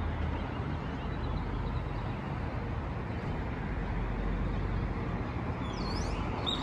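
Steady hum of city traffic heard from high above the street, with a low rumble underneath. A brief high squeak comes near the end.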